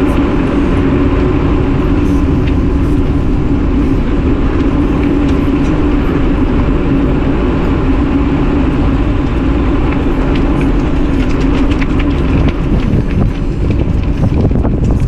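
Wind rushing over the microphone and tyre noise from an e-bike rolling downhill on a rail trail, with a steady low drone throughout. Short rattling knocks come in over the last few seconds as the surface gets rougher.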